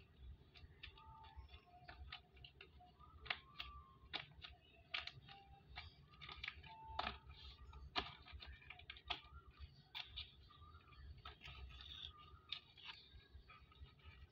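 Faint crinkling and rustling of paper and plastic wrappers, with scattered light taps and clicks, as paper squishies are handled in a tissue-lined cardboard box.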